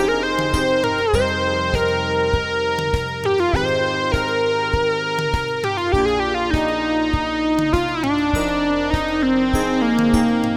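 Moog Matriarch Dark, a four-note paraphonic analog synthesizer, playing held, overlapping notes of a dark patch that change pitch every second or so, over a steady beat of short hits about twice a second.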